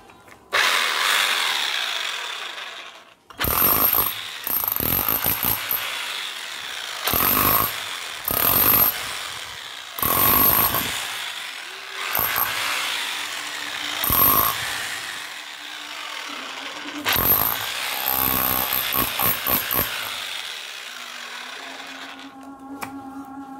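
Electric demolition hammer with a chisel bit hammering into a brick, running in bursts of a few seconds with short pauses and stopping near the end. It is a test run of the hammer after its piston was replaced.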